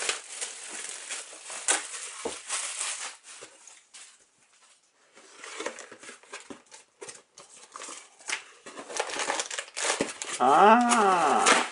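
Clear plastic shrink wrap crinkling as it is pulled off a cardboard display box, then scattered cardboard clicks and rustling as the box's lid flaps are pried open. Near the end comes a short pitched sound that rises and then falls.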